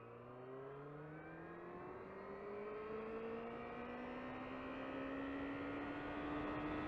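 Yamaha R6 inline-four engine accelerating through a gear, its pitch climbing slowly and steadily as it gets louder, with wind noise, heard from inside the rider's helmet.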